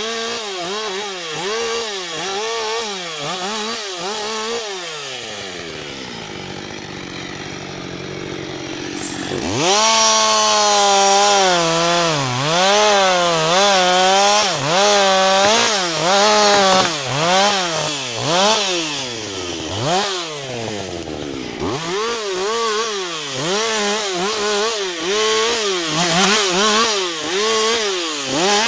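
Husqvarna 560XP two-stroke chainsaw cutting a felled tree: quick rev-ups and drops at first, then the engine slows in a long fall. About ten seconds in it goes to full throttle and saws into the trunk, its pitch sagging and recovering under the load, and near the end it returns to short rev-ups as it cuts branches.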